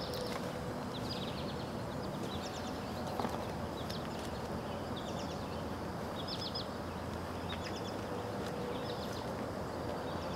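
Outdoor ambience: a steady low background noise with short groups of three to five quick, high chirps, repeating about once a second.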